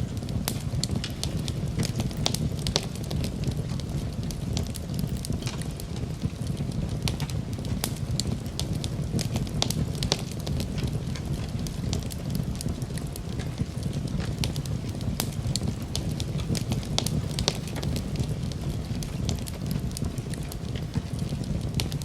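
Campfire burning with a steady low rumble of flames and frequent irregular sharp crackles and pops from the wood.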